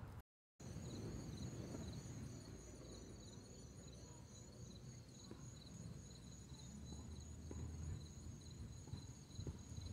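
Insects trilling steadily and high-pitched, the lower trill pulsing in an even rhythm, over a low rumble.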